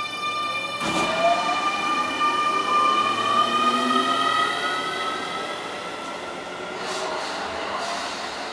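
Keio 9000 series electric train pulling away, its traction motors whining and rising steadily in pitch as it gathers speed. A sharp clack comes about a second in.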